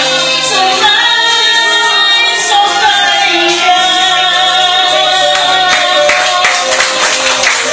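A woman singing into a microphone over music, holding long notes through the middle.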